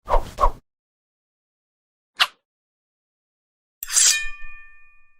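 Sword sound effects: two quick whooshes of a blade swinging, a short swish about two seconds in, then a steel blade clash near the end that rings on with a few clear metallic tones as it fades.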